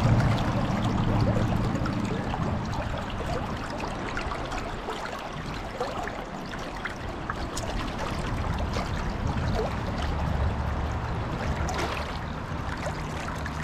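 Shallow trout-stream current flowing steadily, a continuous rushing of water, with a few faint small ticks.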